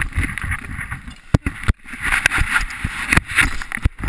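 Rustling and scraping handling noise on a GoPro action camera as it is moved about, with several sharp knocks.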